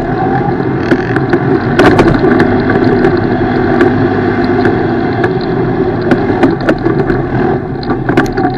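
ATV engine running steadily while riding off-road, a little louder from about two seconds in, with frequent sharp knocks and rattles over it.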